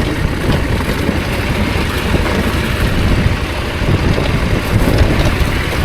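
Adventure motorcycle with a parallel-twin engine running while being ridden off-road, a steady low rumble with no clear changes.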